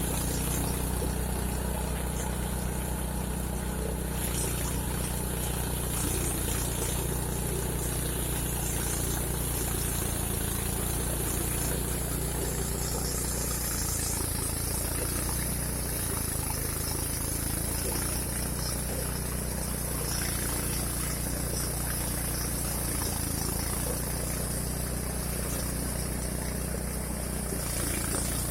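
Engine of a rice threshing machine running steadily at constant speed.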